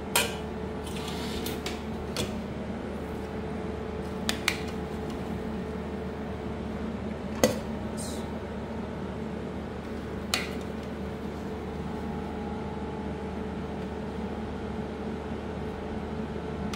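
A few sharp clinks of a metal utensil against a cooking pot, the loudest about halfway through, over a steady kitchen hum.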